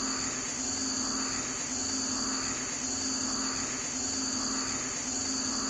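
Steady high-pitched insect chorus that holds level throughout, with a steady low hum underneath.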